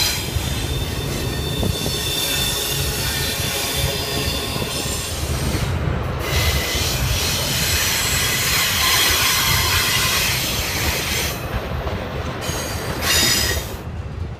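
Double-stack intermodal container freight train rolling past: a steady low rumble of wheels on rail, with high-pitched wheel squeal coming and going. The sound drops off near the end.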